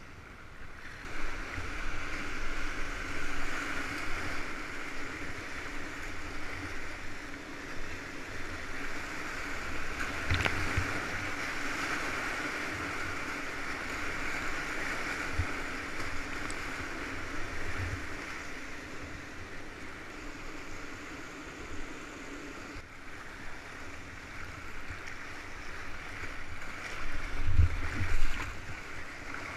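Whitewater rapids rushing and splashing around a kayak, a steady churning water noise that swells about a second in. A few dull low thumps stand out, the loudest near the end.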